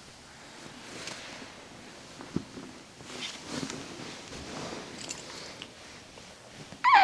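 Faint rustling and handling noise, then near the end a toddler's loud squeal that falls steeply in pitch.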